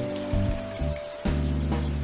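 Background music: a lounge-style track with steady held notes and a beat, dropping briefly about a second in.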